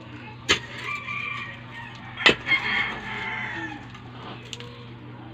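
Long iron digging bar jabbed into stony soil, striking twice about two seconds apart. Chickens cluck and call in the background.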